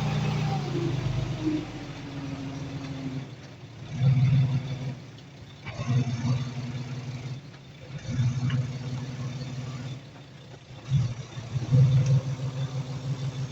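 Heavy diesel earthmoving machine's engine running under load, its revs surging up and dropping back several times.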